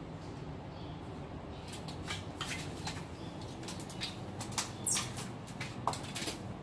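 Kittens' claws scratching and scrabbling against a door as they climb it, a quick run of sharp scratches starting about two seconds in, a few louder near the end.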